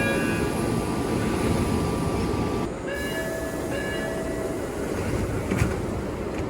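MBTA Orange Line subway car door chimes over the steady noise of the train. A chime fades into a long held tone, then a new chime of several tones sounds about three seconds in. A short knock comes near the end.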